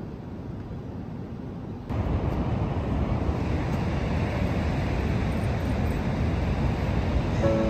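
A low rumbling noise, then, about two seconds in, it jumps to a louder, fuller rush of ocean surf breaking, with wind rumbling on the microphone.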